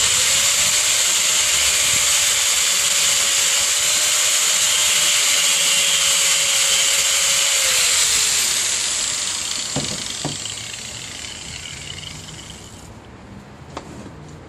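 Corded electric angle grinder running at full speed with a loud high hiss and a steady motor whine. About eight seconds in it is switched off and winds down, the whine falling away over a few seconds, followed by a few light knocks as the tool and workpiece are handled.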